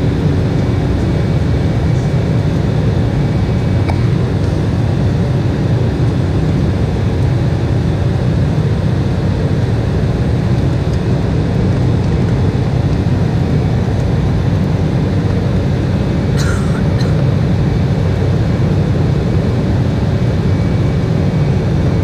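Steady cabin noise of an Embraer E190 airliner in flight: the low drone of its GE CF34-10E turbofan engines and the rush of air past the fuselage, heard inside the cabin. A faint short click comes about sixteen seconds in.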